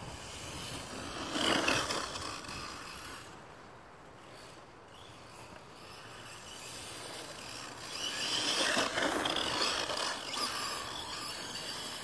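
Redcat Blackout XTE electric RC monster truck running across dry grass, its motor and drivetrain sounding over tyre noise. It surges louder twice, about a second and a half in and again around nine seconds, as it passes near.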